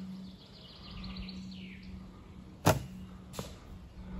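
A recurve bow is shot: the string is released with one sharp, loud snap about two and a half seconds in. A fainter knock follows under a second later.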